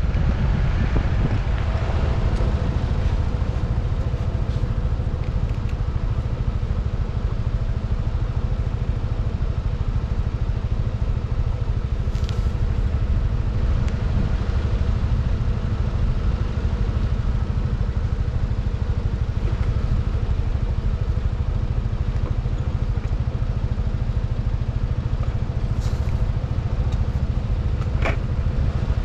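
Yamaha NMAX scooter's single-cylinder engine running at a steady speed under a dense low rumble, with a few faint clicks near the middle and the end.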